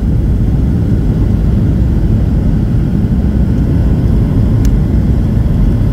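Steady low rumble of a jet airliner's cabin noise on approach to landing: engines and airflow over the wing with the flaps extended.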